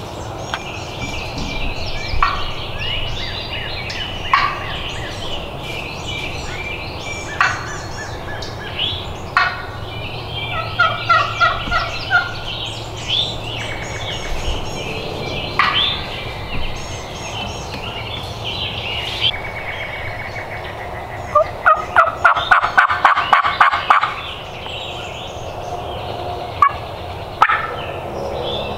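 Wild turkey calling: a quick run of about a dozen loud, evenly spaced yelps lasting nearly three seconds, a little past two-thirds of the way through. Songbirds chirp and sing throughout.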